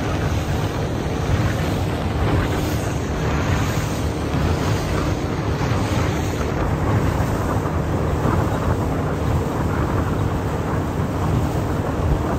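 A small boat's motor running steadily underway, with wind buffeting the microphone and water rushing past the hull.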